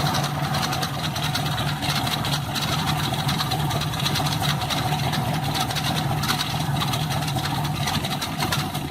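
Volkswagen Beetle's air-cooled flat-four engine idling steadily, with the noise that the owner traced to its worn alternator belt, which is dried out and cracked.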